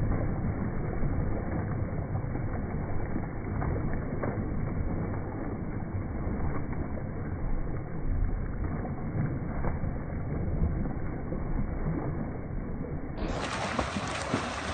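Splashing of freestyle swimmers' arm strokes and kicks in a pool, over a steady low rumble.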